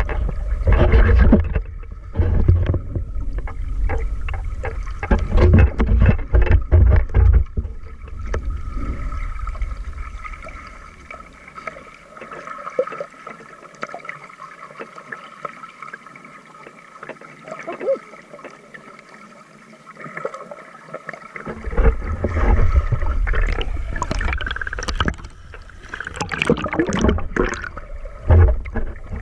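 Sea water splashing and sloshing, with heavy irregular low rumbling through the first several seconds and again from about three-quarters in, quieter in between.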